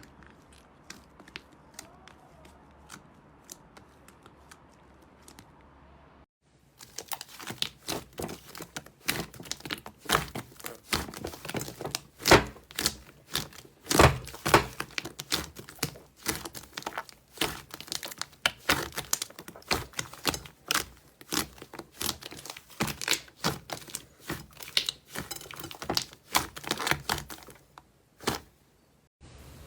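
Slime being squeezed and pressed by hand, crackling and popping. Sparse faint clicks for the first six seconds or so, then dense, loud, irregular crackling that breaks off briefly just before the end.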